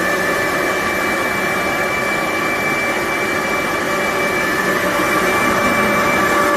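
BIDELI BD-M248 air-cooled industrial grinder running at speed: a loud, steady rushing noise with a high whine.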